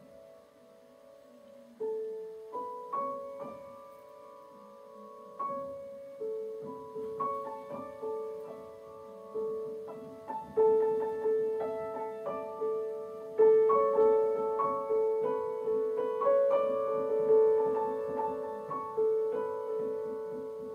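Grand piano played solo, improvised: after a soft first couple of seconds, notes are struck one after another around a repeated middle-register note, and the playing grows louder about ten seconds in.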